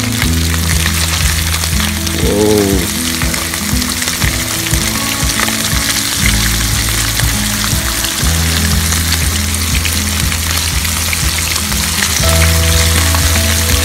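Flour-dusted tamban (small bait fish) sizzling and crackling in hot oil in a non-stick frying pan as more fish are lowered in. Background music with steady low notes plays throughout.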